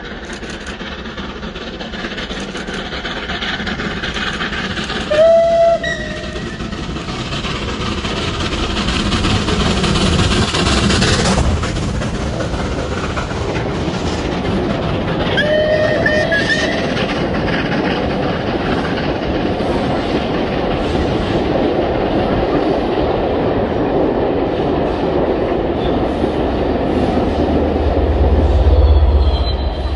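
Steam locomotive 35028 Clan Line, a Merchant Navy class Pacific, passing at speed and sounding its whistle twice in short blasts, about 5 and 15 seconds in. Its Pullman coaches clatter over the crossing and points behind it. Near the end a deep rumble comes in as the diesel locomotive on the rear of the train passes.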